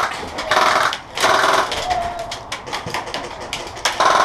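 Airsoft guns firing rapid automatic bursts: three short rattling bursts in the first couple of seconds, another near the end.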